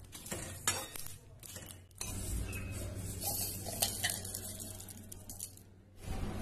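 Metal scraping and clinking on steel: a steel scoop sweeping cumin seeds, garlic and dried red chillies off a steel plate and tipping them into a mixer grinder's steel jar, with a few sharp clinks.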